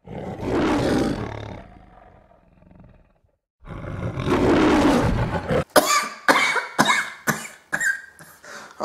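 A man imitating the MGM lion's roar with his voice: two long roars, the second after a short pause, then a run of short coughs.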